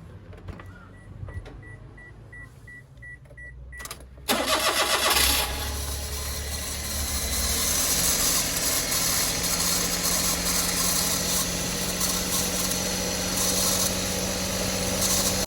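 Daihatsu Hijet S320V's three-cylinder engine starting after a few seconds of rapid beeping, catching about four seconds in and then idling steadily. Over the idle comes the abnormal noise of an age-worn alternator that still charges.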